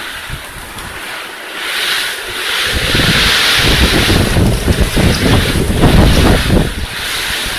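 Typhoon wind gusting hard and buffeting the microphone with a low rumble. A strong gust builds about two seconds in, holds for several seconds and eases near the end.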